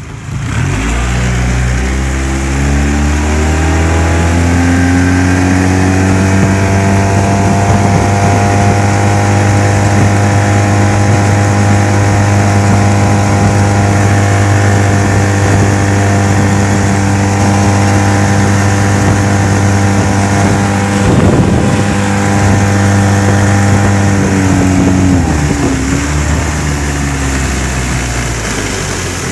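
25 hp outboard motor on a jon boat, its revs rising over the first few seconds as the boat speeds up, then running steadily at speed with water and wind rushing past, and throttling back about twenty-five seconds in.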